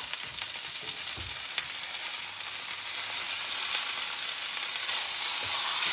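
Steaks searing in hot oil in a frying pan: a steady sizzle, growing slightly louder near the end.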